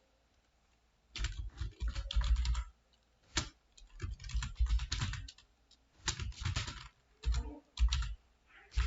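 Typing on a computer keyboard in quick bursts of keystrokes separated by short pauses, the keys clicking with a dull thud under each stroke.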